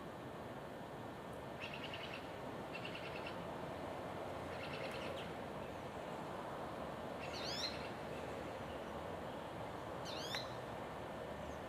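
Small songbirds calling over a steady background hiss: three short chattering trills in the first five seconds, then two quick falling call phrases, about seven and ten seconds in.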